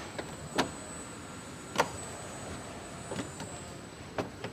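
About half a dozen sharp clicks and knocks at irregular intervals over a steady factory hum. They come from the Smart Fortwo's plastic rear bumper panel being pressed and clipped onto the car body by hand.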